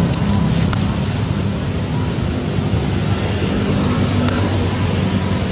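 A steady engine drone with a low hum and an even hiss, unchanging throughout, with a few faint clicks.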